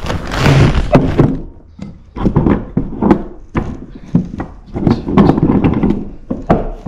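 Handling noise: a brief rustling rush as the camera is moved, followed by a run of irregular knocks and thunks of a wooden panel being shifted and set down on a wooden workbench.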